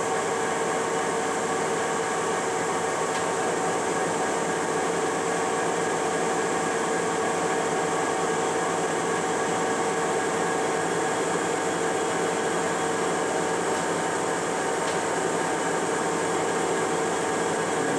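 Lucas horizontal boring mill's headstock traversing down its column under power, a steady machine whine of several held tones over a hum. It comes up right at the start and holds even throughout.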